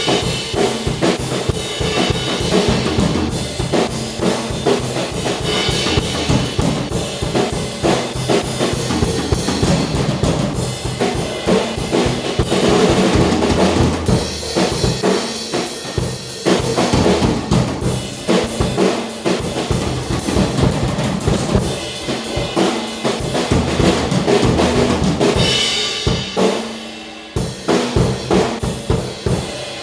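Drum kit being played: bass drum, snare and cymbals in a busy, steady groove. About three-quarters of the way through it thins out for a moment, then comes back with a run of quick strikes.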